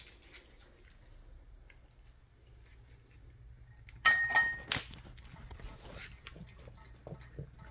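A bowl set down with a sharp clink that rings briefly about four seconds in, then faint small clicks and smacks of a dog starting to lick and eat fruit salad with yogurt.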